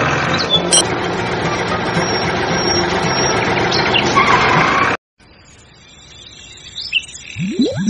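A steady engine-like running noise cuts off abruptly about five seconds in. After a quieter stretch, rising boing-like sound effects start near the end.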